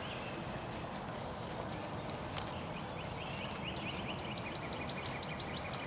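A bird trilling: a fast run of short repeated high notes, about seven a second, starting about two and a half seconds in and lasting some three seconds, over a steady outdoor hiss.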